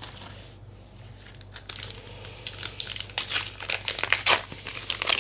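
A trading-card booster pack's foil wrapper crinkling as it is torn open and handled. The sound is a dense run of crackles, starting about a second and a half in and getting louder toward the end.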